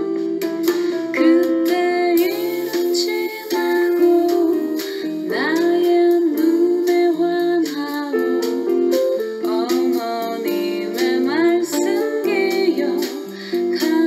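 Background music with a quick plucked-string melody.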